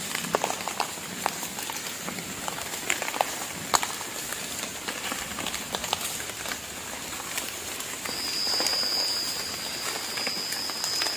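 Light rain falling and dripping in the forest, an even patter with scattered small clicks of drops. A steady high-pitched whine comes in about eight seconds in.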